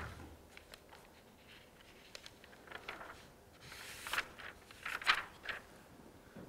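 Faint handling sounds at a lectern: soft rustles and light taps, with a couple of louder rustles about four and five seconds in.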